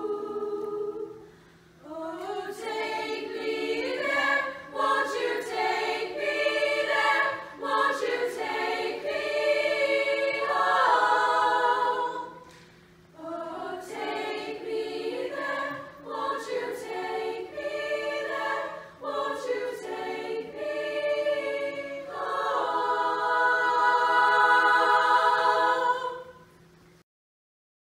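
Girls' high school choir singing unaccompanied in several parts, phrases separated by brief breaks. It ends on a long held chord, the loudest part, which stops abruptly near the end.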